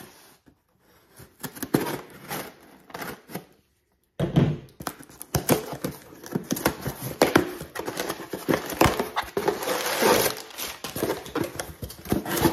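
Knife slitting the packing tape on a cardboard shipping box, a few scattered scrapes and clicks, then about four seconds in a continuous stretch of crinkling, tearing and scraping as the cardboard flaps are pulled open.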